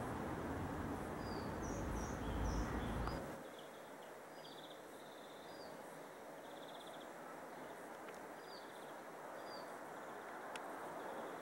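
TGM4 shunting diesel locomotive's engine running with a loud low rumble that drops off sharply about three seconds in. Birds chirp and trill repeatedly throughout.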